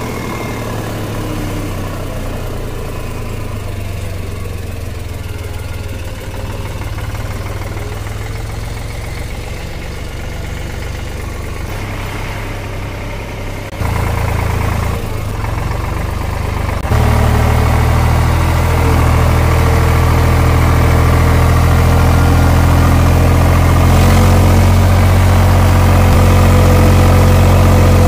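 Eicher 485 tractor's three-cylinder diesel engine running as the tractor drives along, heard close up beside the hood and exhaust pipe. Its steady hum gets louder in a step about halfway through and again a few seconds later.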